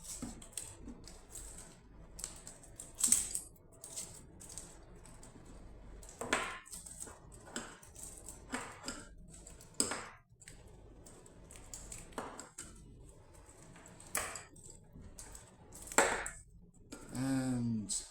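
Electrical tape being peeled off an XLR microphone cable connector: a series of irregular short rips and rustles mixed with small clicks as the connector is handled.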